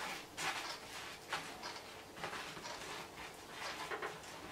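Dry tobacco leaf crinkling and rustling softly under the fingers, in irregular small scrapes, as a filler bunch is folded and laid into a hand cigar-rolling machine.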